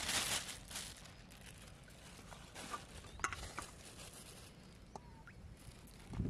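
Small live fish being scooped by hand in a steel bowl: wet rustling and patter, loudest in the first second, then a few light clicks.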